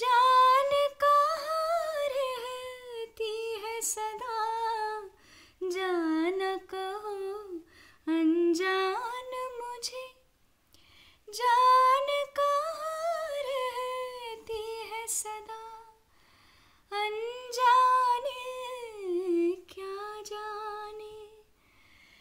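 A woman singing a slow Hindi film melody unaccompanied, mostly wordless, humming in long gliding phrases with short pauses between them.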